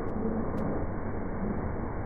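Mercedes-Benz S320 CDI inline-six diesel engine running steadily, with no revving, and a few faint clicks.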